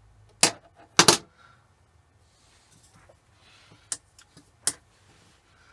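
Sharp metallic clicks and taps of small tools and parts on metal as an oiler nipple is worked out of a Myford lathe. About five distinct clicks, two of them close together about a second in, with fainter ticks between.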